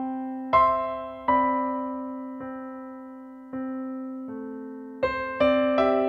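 Background piano music: slow, single struck notes that ring and fade over a held low note, coming quicker near the end.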